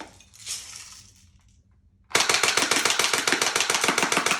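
Airsoft gun firing full-auto: a rapid, even burst of sharp shots starts about halfway in and runs for over two seconds.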